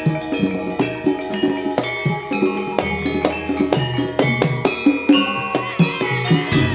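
Jaranan gamelan music: struck metal-keyed percussion ringing in a fast, steady pattern over hand-drum strokes.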